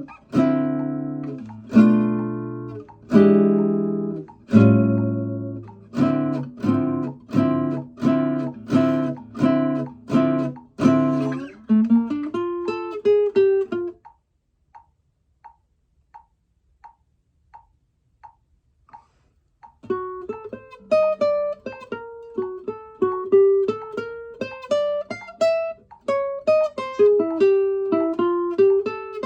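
Kazuo Yairi CY 130 acoustic guitar played solo: ringing strummed chords, a quick rising run of single notes, a pause of several seconds with only faint taps, then a plucked melody over bass notes.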